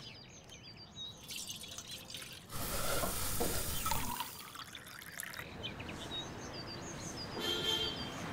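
Milk poured from a steel vessel into a tall glass, a splashing pour lasting about a second and a half starting a little over two seconds in. It follows a soft snip and crinkle of scissors cutting a plastic milk pouch. Small birds chirp in the background, and a short papery rustle comes near the end.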